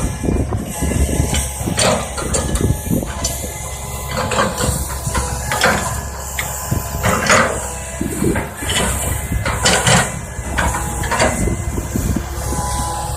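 Hydraulic excavator working: a diesel engine runs with a steady low rumble under irregular clanks and knocks from the bucket and machinery, about one every second or two.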